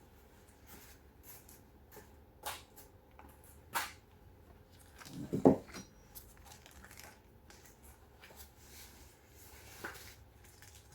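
Scattered light rustling and clicks from handling things, with one louder, lower knock or thump about halfway through.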